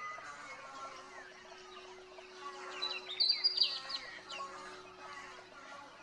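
Dawn chorus: many birds chirping and calling at once, with a louder burst of high, quick calls about three seconds in.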